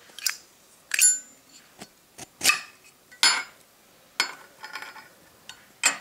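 Zippo lighter being handled: a series of sharp metallic clicks and clinks from its steel case and chrome insert, about half a dozen at uneven spacing, with a quick cluster of lighter clicks about five seconds in.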